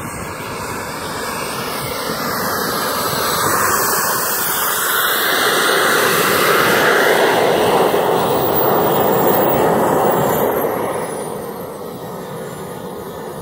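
Engine of a radio-controlled model jet running as it taxis over grass, a loud steady rushing sound that swells as the jet comes close and eases off near the end.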